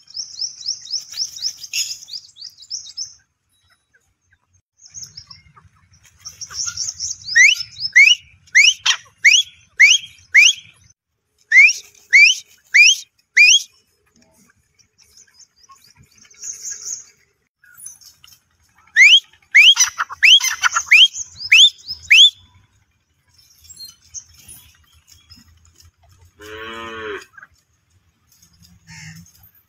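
Gray francolins calling in loud bouts of quick, sharply rising whistled notes, about two a second, with pauses between the bouts. A cow moos once near the end.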